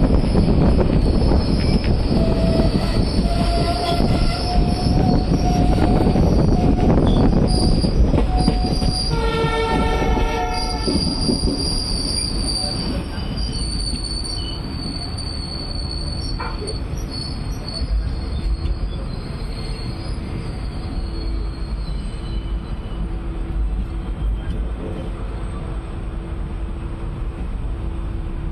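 A passenger train running on the rails, its wheels squealing high and thin against the track over a steady rumble. A train horn sounds briefly about nine seconds in, after which the running grows quieter, with squeals still coming and going.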